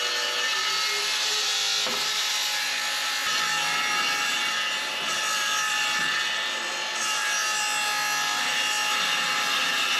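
Cordless circular saw running steadily as it cuts through oak veneer plywood, its blade whining through the sheet.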